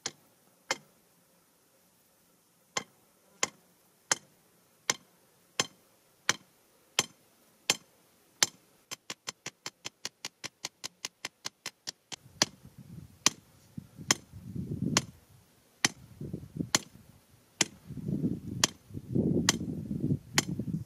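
A hand hammer striking the top of a metal grounding rod, driving it into the ground with sharp metallic blows about every 0.7 s. In the middle comes a run of much quicker, lighter taps, about seven a second. In the second half, bursts of low rumbling noise come in under the blows.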